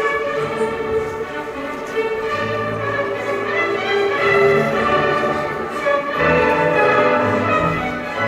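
Recorded orchestral classical music with sustained string notes.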